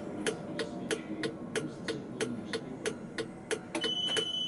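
Cab of a Tatra K2P tram standing at a stop: a steady ticking about three times a second, joined near the end by a steady high-pitched beep.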